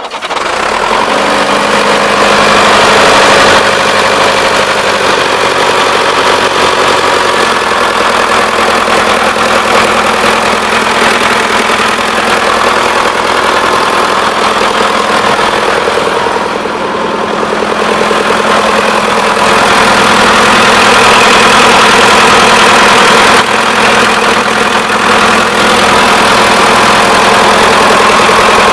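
A-41 four-cylinder four-stroke diesel engine of a DT-75 crawler tractor running steadily. The sound comes in at the very start and builds over the first few seconds, then shifts a little in level partway through.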